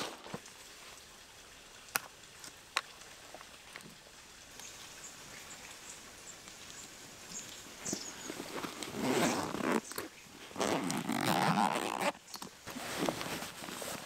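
Zipper on a Burton backpack being pulled open in several long runs through the second half, after a couple of light clicks about two and three seconds in.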